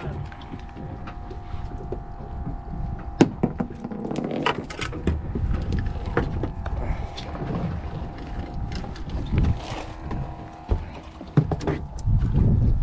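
Small fishing boat at sea: a steady engine hum with low wind rumble on the microphone, scattered clicks and knocks of gear being handled on deck, and a louder burst of rumble near the end.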